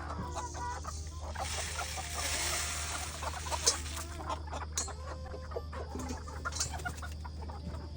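A flock of chickens clucking, many short calls overlapping, with a hiss a couple of seconds in and a few sharp clicks later on over a steady low hum.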